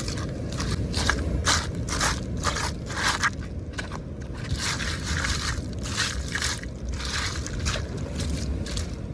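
Repeated scraping, crunching strokes, roughly two a second, over a steady low rumble of wind and sea.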